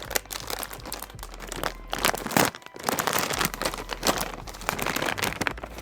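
Graphics card box and its packaging being opened by hand: irregular crinkling and rustling with a few sharper scrapes.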